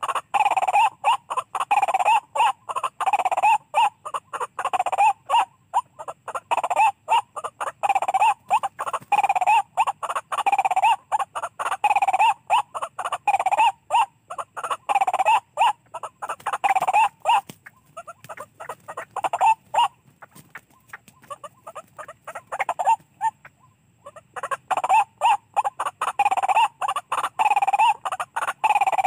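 White-breasted waterhen calling: harsh, croaking 'kruak' notes repeated about twice a second. The calls thin out to a few scattered notes about 18 seconds in and come back strongly about 25 seconds in.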